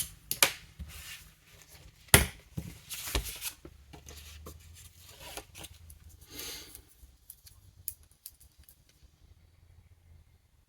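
Washi tape being handled and cut at a desk: sharp clicks and snaps with short tearing and rasping sounds, the loudest snap about two seconds in. The sounds thin out to faint ticks for the last few seconds.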